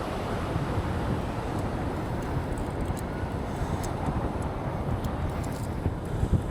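Steady wind noise buffeting the microphone, a low rumbling rush with a few faint ticks over it.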